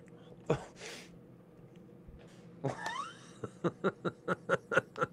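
Two men laughing hard without words, breaking into a quick, even run of "ha-ha" bursts, about five a second, in the second half.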